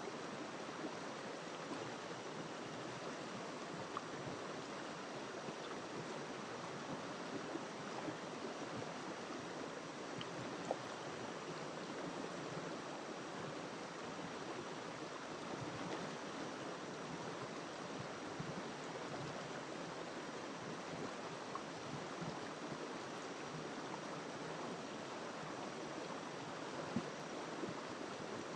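River water rushing and splashing over rocks in a steady, even flow, with small splashes and drops scattered through it.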